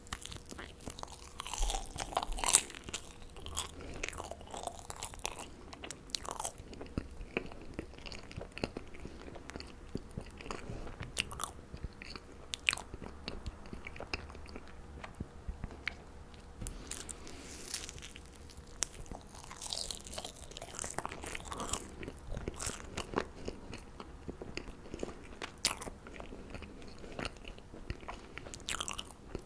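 Marshmallows being bitten and chewed close to the microphone: many sharp, sticky clicks and crunches, loudest about two and a half seconds in.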